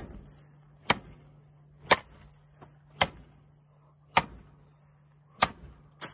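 Hockey stick blade slammed down onto a cinder block six times, about a second apart, each a sharp crack.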